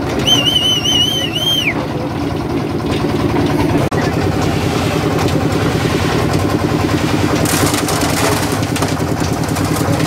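Engine of a portable drum concrete mixer running steadily while the drum turns and is tipped to discharge concrete. Near the start a wavering high whistle sounds for about a second and a half over it.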